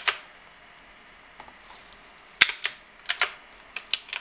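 Typing on a computer keyboard: a keystroke or two at the start, then a quick run of keystrokes from about two and a half seconds in.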